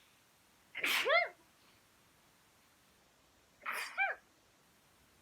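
A woman sneezing twice, about three seconds apart: each sneeze a sharp rush of breath ending in a short voiced 'choo' that rises and falls in pitch.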